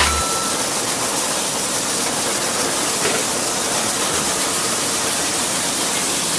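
Semi-automatic rotary bottle brushing machine running with a steady hissing rush.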